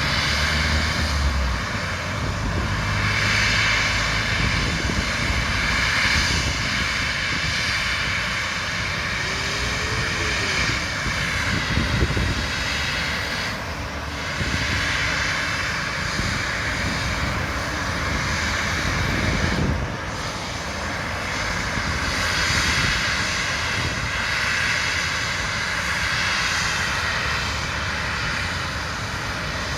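Airliner engines running loud and steady at an airfield, a dense roar with a high whine that swells and eases every few seconds.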